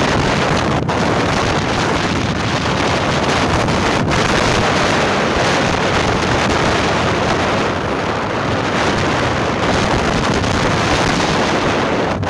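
Steady wind noise rushing over the microphone of a moving motorcycle, with the ride's engine and road noise mixed in.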